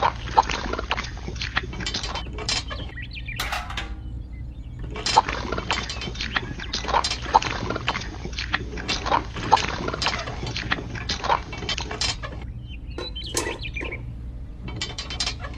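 Many irregular clinks and scrapes of gravel and wet concrete being worked, over a steady low hum.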